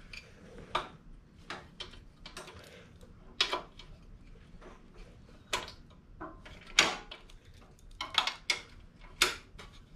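Metal wrench clicking and clinking against bolt heads and the engine casting of a snowblower engine as the bolts are worked loose by hand: irregular sharp clicks, a few of them louder knocks.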